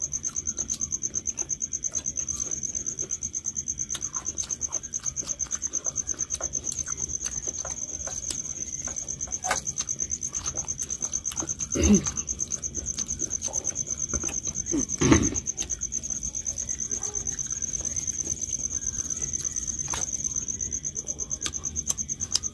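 A cricket chirping steadily, a high trill pulsing several times a second, over faint clicks and smacks of people eating rice by hand from steel plates. Two short, louder hummed voice sounds stand out about 12 and 15 seconds in.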